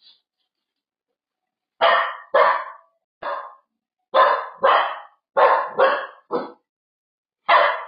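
A puppy barking, about nine barks in short runs and pairs, starting about two seconds in.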